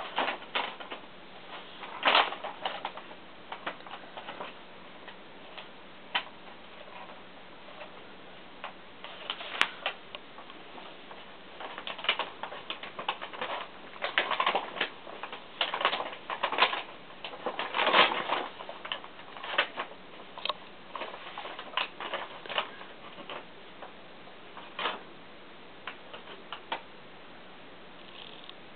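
A paper bag rustling and crackling in irregular bursts as two cats wrestle inside it and claw at it, with short pauses between bursts. The bursts come thickest around the middle.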